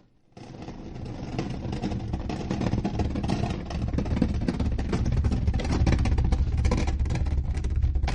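Stone sound effect: a continuous low rumble of rock grinding and rolling, dense with small clicks. It starts about half a second in and builds slowly.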